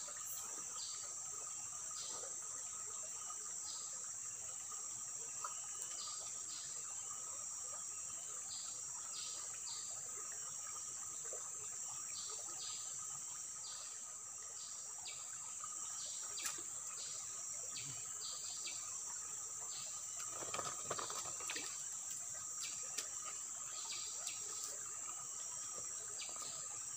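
Steady insect chorus: a continuous high-pitched drone with a second steady tone lower down, and short chirps repeating irregularly throughout.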